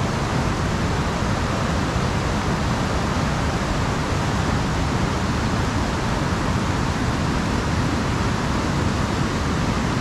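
A fast white-water mountain river rushing steadily, an even, unbroken wash of water noise.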